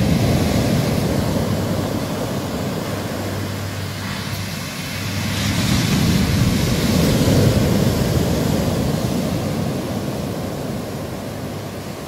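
Pacific Ocean surf breaking on the shore, a steady rush of waves that surges louder about halfway through and eases off near the end.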